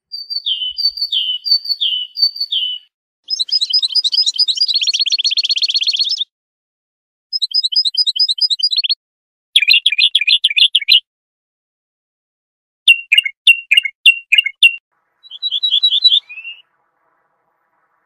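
Songbird song in separate phrases with silent gaps between them. It opens with a great tit's two-note 'tea-cher' phrase repeated about five times, followed by several different rapid trills and quick series of high notes.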